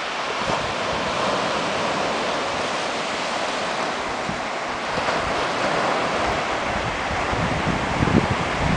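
Surf breaking and washing up a sandy beach as a steady rushing noise, with wind buffeting the microphone, strongest near the end.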